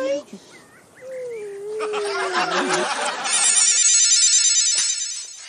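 A long hummed 'mmm' that slowly falls in pitch, then, about three seconds in, a loud electric ringing like a telephone bell that lasts nearly two seconds and then stops.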